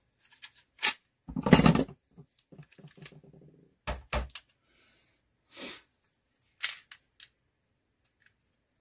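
A semi-automatic pistol being handled: a string of sharp clicks and clacks as the magazine is taken out and set down on the table and the slide is pulled back and locked open. The loudest is a longer clatter about a second and a half in.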